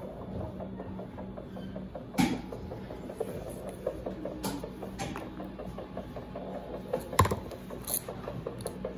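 Cloth surgical drapes being handled and pulled off: soft rustling and small handling noises with a few sharp clicks, over a steady low hum.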